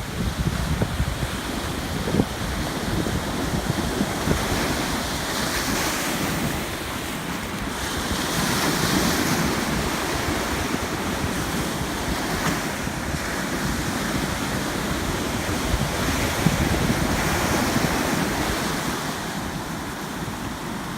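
Ocean surf washing on the beach, swelling and easing in slow waves, with wind buffeting the microphone.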